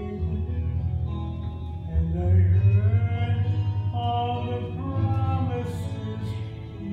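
A man singing solo over an instrumental backing, holding long notes, loudest a little over two seconds in.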